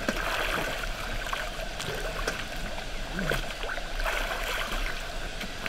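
A stream of running water, a steady rush with no break.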